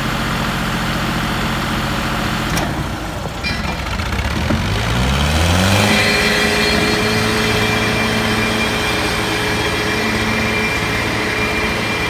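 Tractor diesel engine running steadily, then revving up smoothly about four seconds in and holding at high revs.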